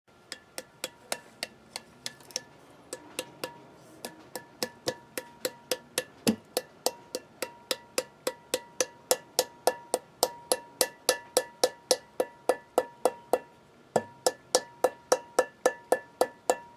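Rubber mallet tapping a grease seal into the hub of a new Ford F-250 front brake rotor: a steady run of light taps, about four a second, with a faint ring between them and a short break near the end.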